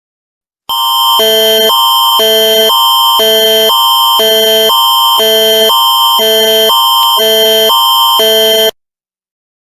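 Canadian Alert Ready attention signal: a loud electronic alarm tone switching between a higher and a lower chord every half second over a steady high tone, for about eight seconds, then cutting off. It marks the start of an emergency alert broadcast.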